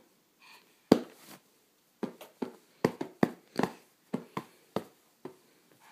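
A toddler's hands slapping on top of an upholstered ottoman: a quick, irregular series of about a dozen sharp smacks.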